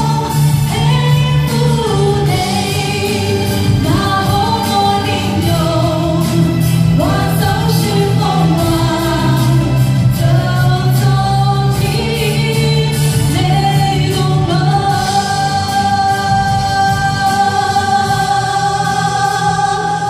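A singer singing a slow song into a microphone over steady instrumental accompaniment, ending on one long held note in the last few seconds.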